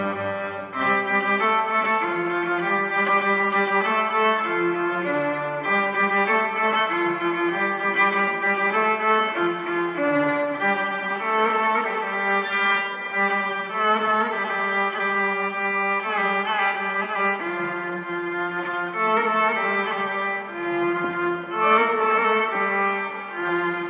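A violin being bowed, playing a melody of held notes.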